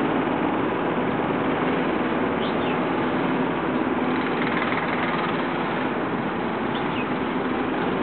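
Steady mechanical drone, engine-like, with two short high chirps, one a couple of seconds in and one near the end.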